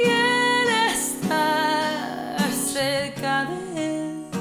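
A woman singing long held, wavering notes in about three phrases over acoustic guitar.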